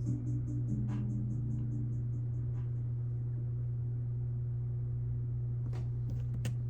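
The end of the hip-hop track playing back: the quick hi-hat pattern thins out and stops within the first two seconds, leaving a steady low bass tone. A few sharp clicks come near the end.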